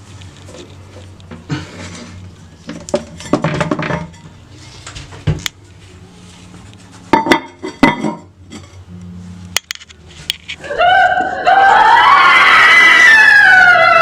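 Scattered knocks and clinks of handling, with two louder knocks near the middle. Then, about ten seconds in, a loud wailing sound with sliding, wavering pitches begins and holds.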